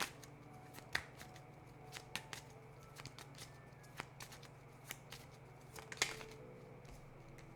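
Tarot cards being handled: irregular crisp clicks and snaps of the cards, with louder snaps about a second in and again about six seconds in, over a faint steady low hum.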